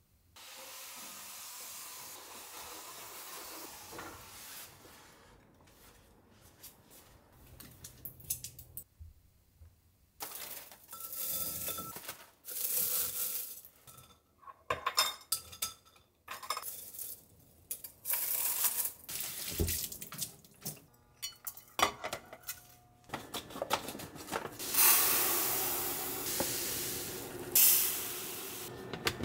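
A run of kitchen handling sounds: short clinks and knocks of glass jars, a metal tea infuser and utensils as dried tea leaves are moved with tongs. Near the end, a longer hiss of white powder pouring from a bag into a plastic container.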